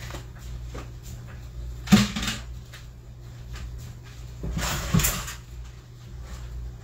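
Kitchen clatter of things being put down and moved: a sharp knock about two seconds in, then a longer rattle ending in a knock near five seconds, over a steady low hum.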